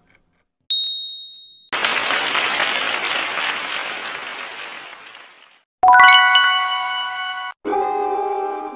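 Quiz-game sound effects marking a correct answer: a single bright ding about a second in, then a burst of applause that fades out over about four seconds, then a bright chime and the start of a short musical jingle near the end.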